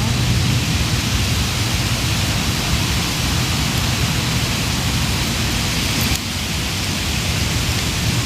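Steady rushing of ocean surf, a loud even wash that eases slightly about six seconds in.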